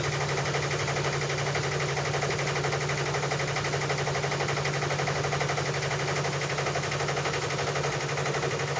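A sailboat's motor running steadily with a fast, even pulse, driving the boat at cruising speed without being run hard.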